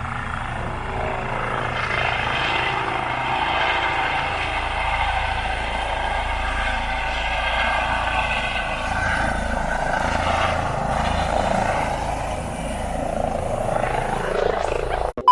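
Helicopter taking off and flying away, its rotor and turbine running steadily with a whine that shifts in pitch. The sound cuts off suddenly near the end.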